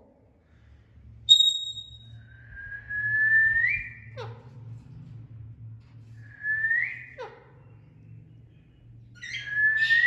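A parrot whistling: a short high chirp about a second in, then three whistled phrases, each gliding upward and ending in a quick downward sweep, like a wolf whistle. A steady low hum runs underneath.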